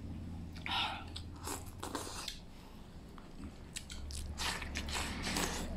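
A person eating broth-soaked rice from a bowl held to the mouth, shoveling it in with chopsticks: short bursts of slurping and chewing, a cluster in the first two seconds and another near the end, with a short lull between.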